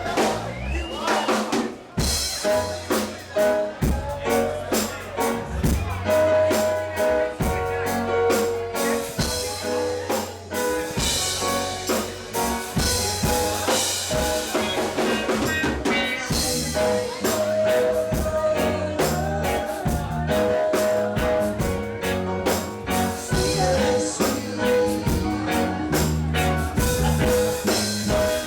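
Live reggae band playing an instrumental passage: drum kit with rimshots and snare on a steady beat, a bass line, and held melody notes over the top.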